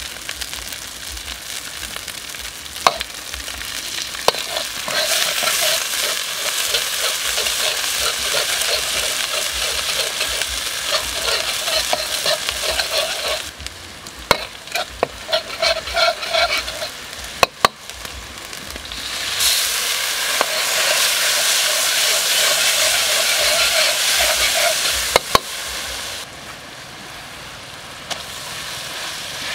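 Chili flakes frying in oil in a steel wok, sizzling loudly while a metal ladle stirs and scrapes the pan in quick repeated strokes. A few sharp clinks of metal on the wok come through, and the sizzle drops away near the end.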